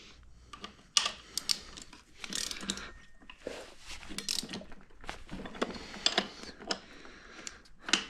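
Hand tool snugging down the bolts on an electric scooter: irregular metallic clicks and short scrapes as each bolt is tightened.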